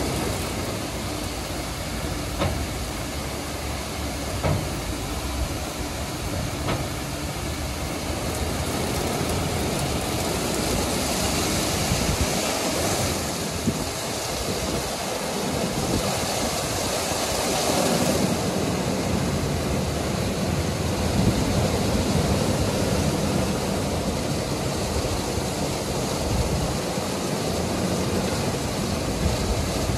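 A WashTec EasyWash rollover car wash running: its gantry travels on its rails while the green SofTecs brushes spin against the car and water sprays, making a steady whirring, splashing noise. The noise grows louder and hissier for several seconds midway, then settles, with a few small clicks.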